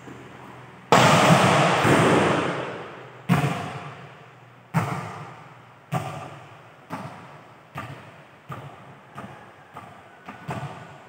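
A volleyball is hit hard with a loud smack about a second in, then bounces on the hard court floor about ten times. The bounces come faster and fainter until it settles, and each one echoes in the big hall.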